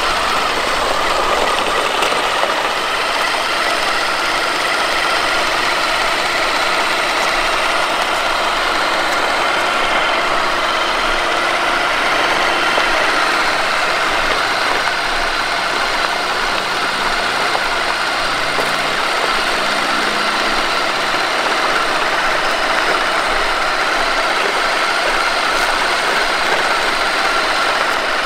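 Traxxas TRX-4 crawler's electric motor and gearbox whining steadily under load as it tows two RC trucks along asphalt, with the wheels rolling on the pavement.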